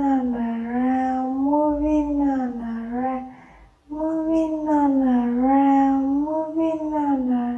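A high voice sings long, slowly wavering notes without clear words, in two long phrases with a short breath about three and a half seconds in.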